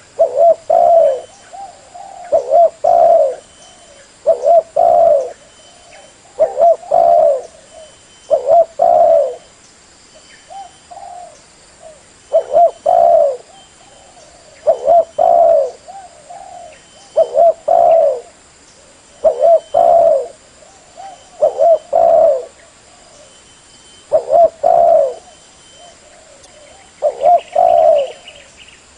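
Spotted dove (terkuku) cooing, a phrase of several low coos repeated about every two seconds.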